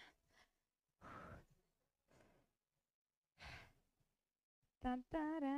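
A woman breathing out heavily twice, like sighs, as she catches her breath after high-intensity exercise. Near the end she starts singing short 'tan-tan-tan' syllables on one steady note.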